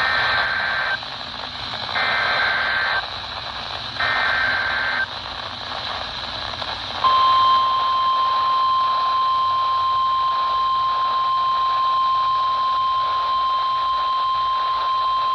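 NOAA Weather Radio broadcast heard through a weather radio receiver over static hiss. Three one-second bursts of SAME digital header data warble two seconds apart. About seven seconds in, the steady 1050 Hz warning alarm tone begins and holds, as sent in the Required Weekly Test.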